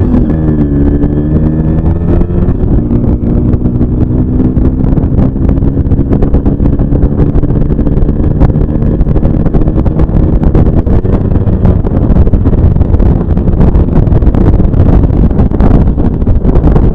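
Yamaha RX100's two-stroke single-cylinder engine running under way at a fairly steady speed.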